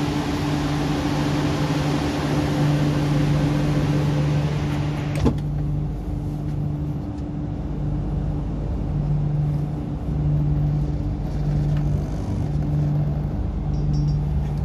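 Sliding passenger doors of an MTR Q-Train closing with a sharp thud about five seconds in, cutting off the loud station noise that came in through the open doorway. Afterwards the train's steady low hum carries on, the lower hum pulsing on and off.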